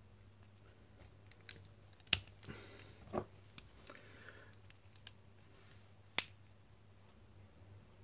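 Light metallic clicks of stainless-steel Victorinox multitools being handled as a saw blade is folded out, with two sharper clicks about two seconds and about six seconds in.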